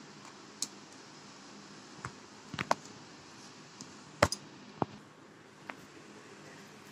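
A spoon scooping set ice cream out of a plastic tub, with a scattering of sharp clicks and taps as it knocks the container. The loudest taps come near the middle.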